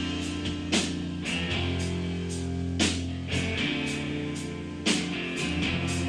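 Rock band playing live, with strummed guitars over drums. Three hard drum-and-cymbal hits fall about two seconds apart.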